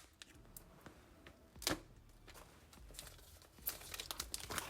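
Pull-tab wrapping strip being peeled off an iPhone 12 mini box: soft tearing and crinkling of paper, with one sharp rip a little under two seconds in and steadier rustling in the last second or two.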